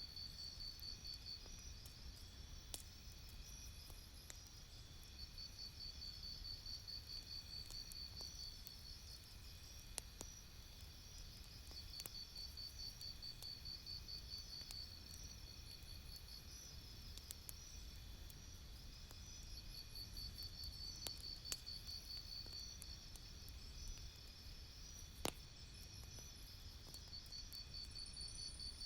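Campfire crackling faintly, with a few sharp pops, over repeated trains of high, rapid cricket-like chirping, each lasting a couple of seconds, and a low steady rumble.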